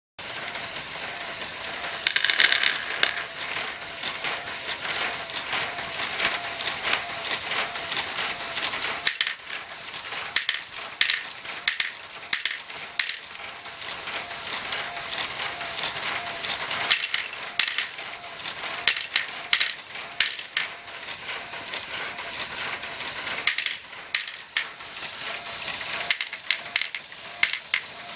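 Lego Technic Great Ball Contraption module running: a small Lego electric motor's faint steady whine under the clatter of plastic gears and reciprocating lift bars, with plastic balls clicking against each other and the track.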